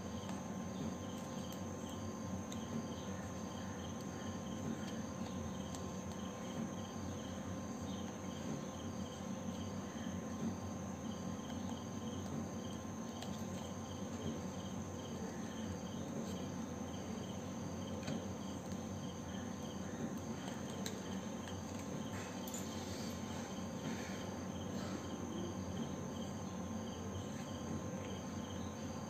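An insect chirping in a steady, even rhythm over a constant hum, with a few faint snips of scissors cutting thick paper.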